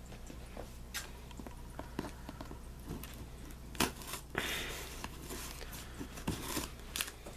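Handling noise from a cardboard shipping box being opened by hand: scattered light taps and knocks, with a short scraping rustle a little past four seconds in.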